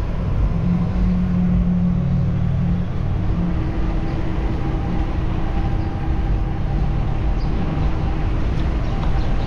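Steady wind and road rumble from riding along a city street, heaviest at the low end. Over it is a steady motor hum that is low for the first few seconds and then carries on at a higher pitch.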